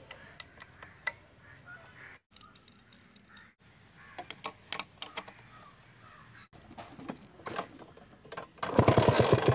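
Scattered light clicks and metal clinks of hands working on an LML Vespa scooter's engine parts and wiring, broken by several abrupt cuts. Near the end a loud, harsh, rapidly pulsing burst lasts under a second.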